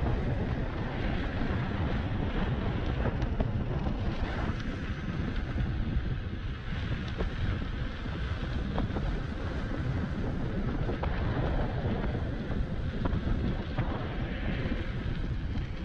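Wind rushing and buffeting on the microphone with road rumble while riding a Begode MSX electric unicycle.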